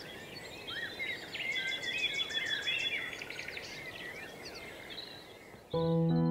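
Birds singing, a busy mix of overlapping chirps, whistled glides and quick trills. Music starts abruptly near the end.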